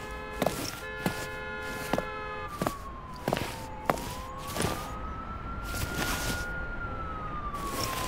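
Layered city-street sound design playing back: a wailing siren slowly rising and falling in the city ambience. Sharp heel-like footstep clicks come about every second, made from pitched-up boot footsteps. Brief rustles of basic-cloth coat-and-bag Foley are performed over them.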